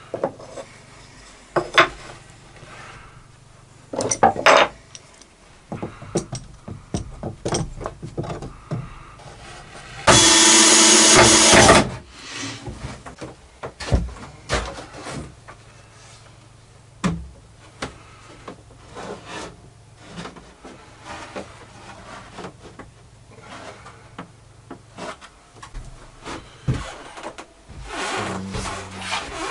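Plywood parts being handled and fitted together: scattered knocks and wood rubbing on wood. About ten seconds in comes a loud burst of about two seconds from a power tool.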